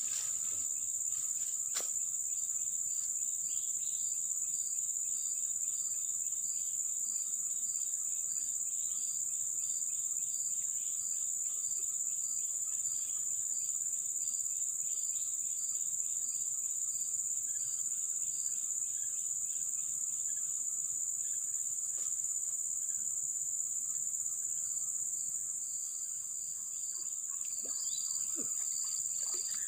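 Steady insect chorus: a constant high-pitched drone with a second insect call pulsing about twice a second over it. The pulsing call stops a little past the middle and starts again near the end.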